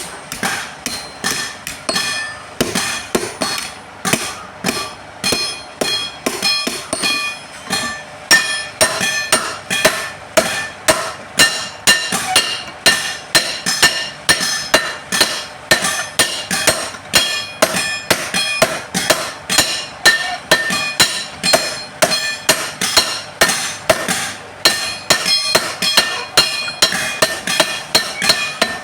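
Hand hammer striking steel on an anvil in steady forging blows, about two a second, each blow leaving a metallic ring: steel being forged into a dodos, an oil-palm harvesting chisel.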